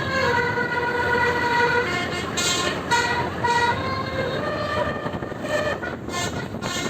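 Multi-tone basuri telolet horn on a tour bus, played continuously as a melody. One note is held for about two seconds, followed by a run of shorter notes at changing pitches.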